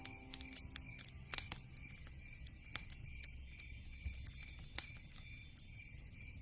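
Wood fire crackling in a fireplace: irregular sharp pops and snaps over a low rumble from the flames.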